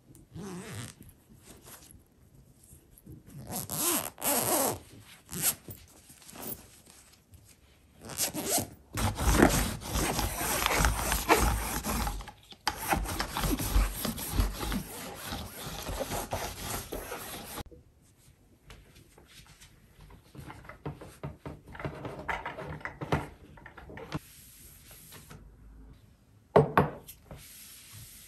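Sticky lint roller rubbing back and forth over a fabric-upholstered headboard, a sustained noisy rubbing for about eight seconds in the middle. Shorter rubbing and handling sounds come before and after it, with a sharp knock near the end.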